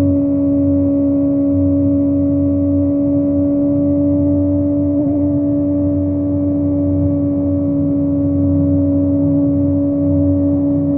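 Kawasaki ZX25R's 250 cc inline-four engine with a Yoshimura exhaust, cruising at steady high revs with a constant, even pitch, over a low rumble of wind and road noise.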